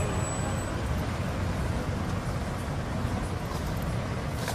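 Steady street traffic noise, a low rumble of passing vehicles, with a single click near the end.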